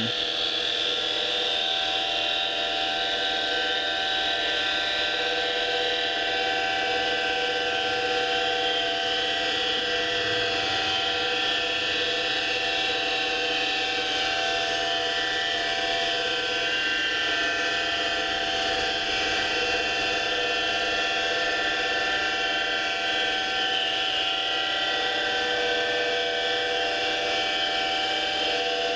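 7x16 Micro-Lux mini lathe running steadily under CNC control, its motor and drive whining on a constant pitch while carbide tooling cuts a small wooden bowling-pin blank, starting with a rough, faceted roughing pass.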